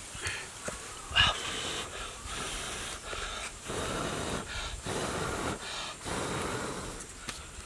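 A person blowing breath after breath onto a small wood fire of twigs to fan the flames, each blow a rush of air lasting about half a second. A short knock about a second in.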